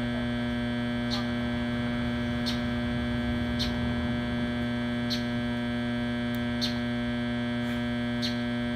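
A steady electrical-sounding hum made of several low, even tones, which the uploader blames on a broken generator. A short faint high tick sounds about every one and a half seconds over it.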